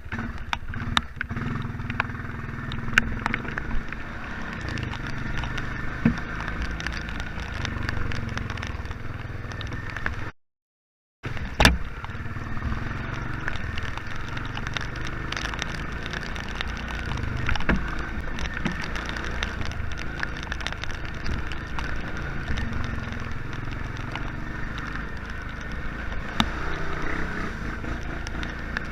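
Honda Fourtrax ATV running while riding over a rough, muddy trail, with steady engine and wind noise and frequent rattles and clatter from the machine. The sound cuts out completely for under a second about ten seconds in.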